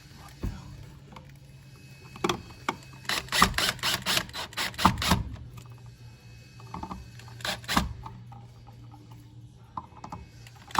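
Small clicks and taps of a screwdriver and plastic receptacle spacers as an electrical outlet is screwed back into its box: a quick run of clicks about three to five seconds in, then a couple more later.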